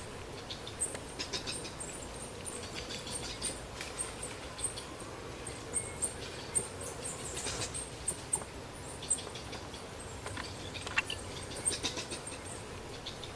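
Many short, very high-pitched chirps and squeaks from small animals, coming in quick clusters every second or two.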